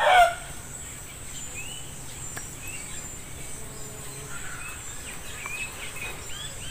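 Rural outdoor ambience: the last of a rooster's crow at the very start, then small birds chirping a few times over a steady high insect buzz.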